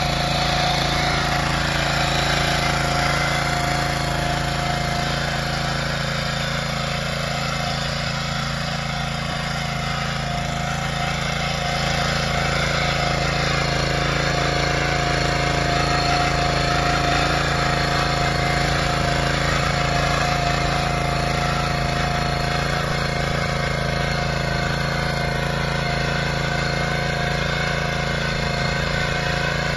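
Benassi BL105 rotary tiller's engine running steadily, easing off slightly for a few seconds about a quarter of the way in.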